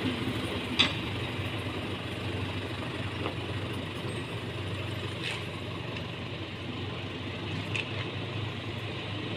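Farm tractor engine running steadily as it tows a loaded trailer away, slowly fading, with a sharp knock a little under a second in.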